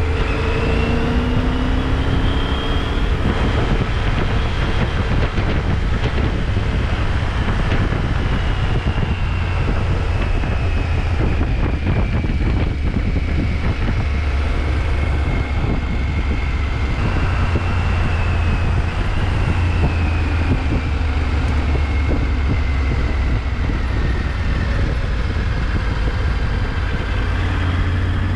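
Motorcycle being ridden: a steady low rumble of engine and road noise, with the engine note slowly rising and falling several times as the revs change.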